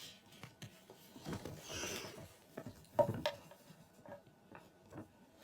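Quiet handling noises: scattered light taps and clicks, a brief rustle about two seconds in, and a sharper knock about three seconds in, as small objects are moved about on a surface.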